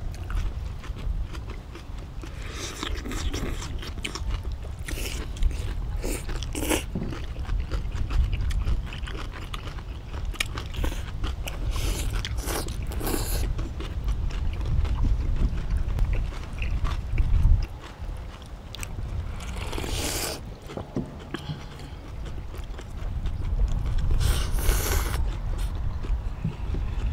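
People eating noodles and fresh cabbage kimchi: several short bursts of noodle slurping, chewing and crunching, with small clicks of chopsticks on bowls. A steady low rumble runs underneath.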